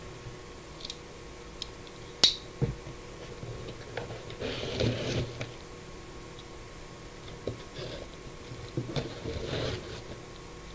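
Handling noises from objects being moved about: a sharp click about two seconds in and a softer knock just after, then stretches of rustling and scraping a couple of seconds later and again near the end. A faint steady hum runs underneath.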